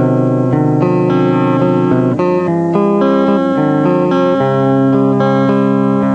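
Guitar-led indie pop music with no singing, sustained notes and chords changing every second or so, from a lo-fi four-track home recording.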